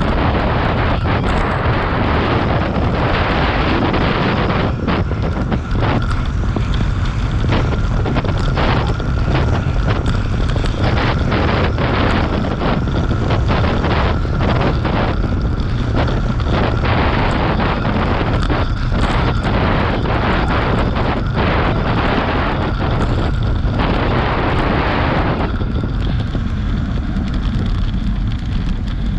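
Heavy wind noise on the microphone of a road bike racing at around 25 mph, a steady loud rush with frequent sharp knocks. The rush eases about 25 seconds in as the bike slows.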